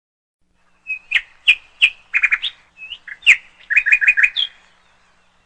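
A small songbird singing: a string of short chirps and quick trills, starting about a second in and stopping about a second before the end.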